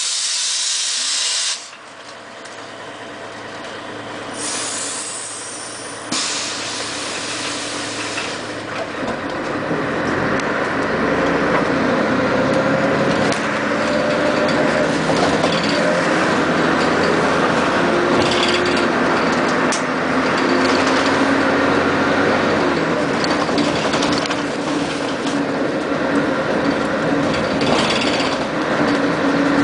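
Inside a 1996 Scania CN113CLL city bus: hisses of compressed air at the start and again a few seconds later. Then the engine and drivetrain run up as the bus pulls away and accelerates, with a whine rising in pitch from the rear axle, which is well audible on this bus.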